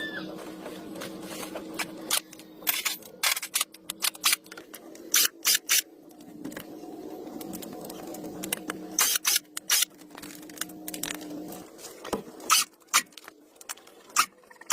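Hand tools working on old jeep parts: a run of sharp, irregular clicks and scrapes of metal, in clusters, over a steady low hum.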